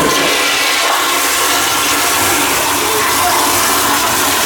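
Toilet flushing: a loud, steady rush of water.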